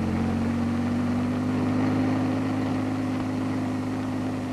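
Bell H-13 Sioux helicopter in low flight, its piston engine and rotor giving a steady drone that rises slightly in pitch.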